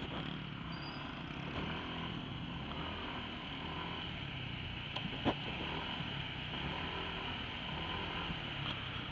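Motorcycle engine running at low speed, heard from a camera mounted on the bike, with a low steady rumble. Two short knocks come about five seconds in.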